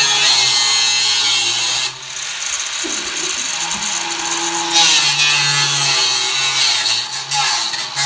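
A power tool running under load, with a steady motor whine under a harsh high hiss. It eases off about two seconds in and gets louder again just before five seconds.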